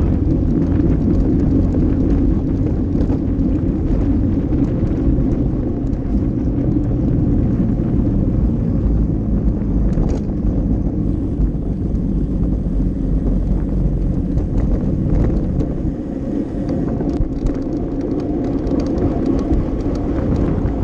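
Wind rushing over a handlebar-mounted camera on a racing road bike, with a steady low rumble from the tyres running over brick paving at speed and faint scattered clicks. The noise eases briefly about three-quarters of the way through.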